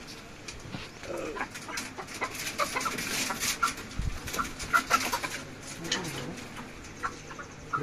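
Live chickens clucking and squawking in short calls inside a wire cage while they are handled, with scattered knocks and clatter from the cage.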